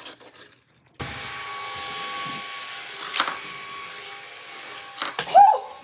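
Small battery-powered flying toy whirring steadily on its propeller motors. The whir starts suddenly about a second in, there is a sharp click about two seconds later, and a short vocal exclamation comes near the end.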